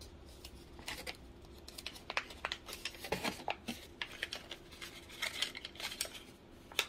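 Paper sleeve rustling and crinkling as it is handled and pulled off a pair of chopsticks: a scattered run of light rustles and small sharp ticks.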